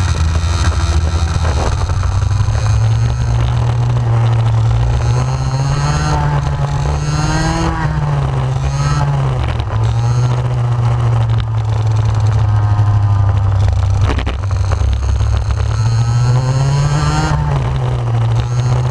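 125cc two-stroke racing kart engine heard onboard, revving up as the kart accelerates and dropping back as it slows for corners; the pitch climbs about five seconds in and again near the end. A single sharp knock sounds about fourteen seconds in.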